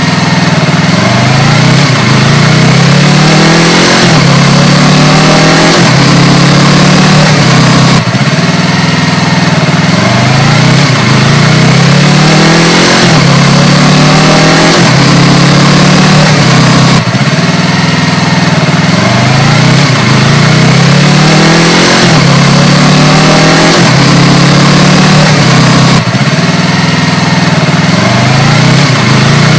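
2019 Yamaha R3's parallel-twin engine through an Akrapovič slip-on exhaust, accelerating from a standstill: the revs climb, drop at each upshift and climb again through several gears. The pull-away starts over three times, about every eight or nine seconds.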